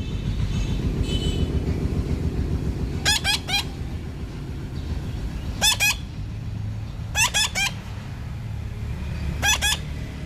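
Parrot calling in four short bursts, each a quick run of three sharp squawks. A steady low rumble of background noise runs underneath.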